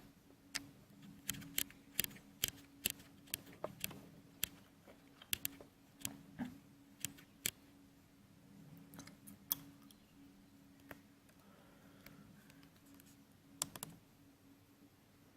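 Irregular run of sharp clicks and taps, thickest in the first half and again briefly near the end, over a faint steady hum.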